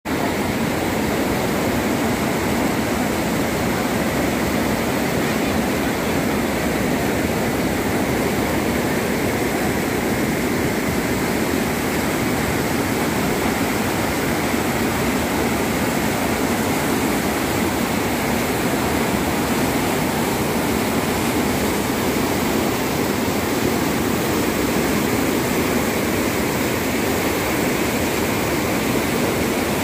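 Floodwater from an overflowing lake rushing over a weir and through sluice openings, churning into white-water rapids: a steady, loud rushing of water.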